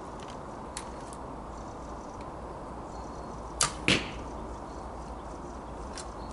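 A hickory American flatbow being shot: a sharp snap of the string on release, then about a third of a second later a louder thud of the arrow striking the target. A few faint clicks come before and after.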